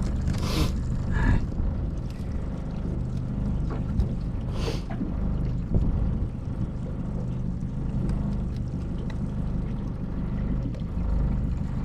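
Boat's outboard motor running steadily at low revs. Two brief hissing bursts stand out, about half a second and about four and a half seconds in.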